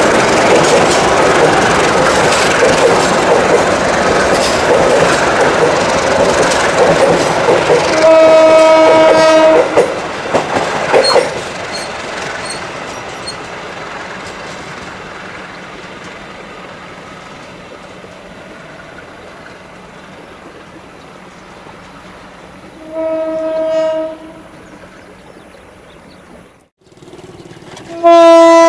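An Indonesian diesel-hauled train rolling past close by, its wheels clattering over the rail joints. The locomotive horn sounds a blast of about a second and a half, about eight seconds in. The rumble then fades as the train moves away, a shorter horn blast sounds later, and a loud horn starts just before the end.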